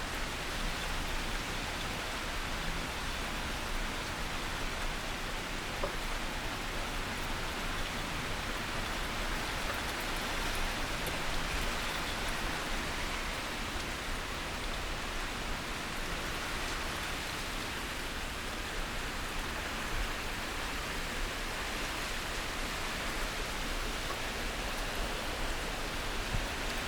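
Heavy typhoon rain falling steadily, an even, unbroken hiss.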